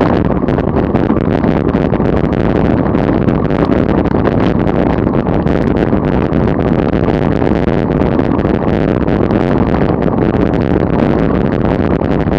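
Steady, loud wind rush buffeting the microphone of a camera riding on a racing bicycle at about 30 mph.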